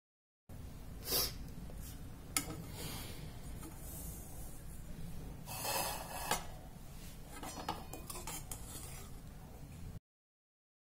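A utensil scraping and rubbing against a dish in a few strokes, with a sharp click or two, over a low steady hum.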